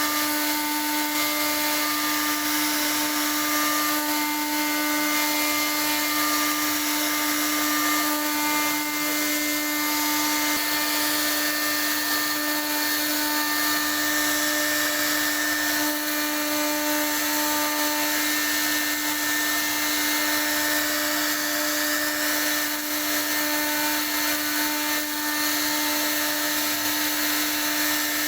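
CNC router spindle running at a constant steady whine as its bit carves a design into wood, with a dense hiss of cutting over it.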